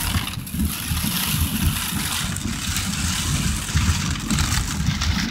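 Heavy rain hitting a car's roof and windshield, heard from inside the cabin as a steady hiss over the low rumble of the car driving.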